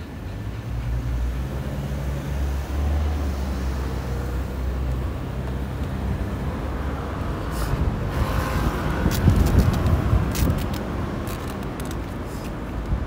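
Road traffic: a motor vehicle's engine running close by, then louder road noise as traffic passes, with several sharp clicks in the second half.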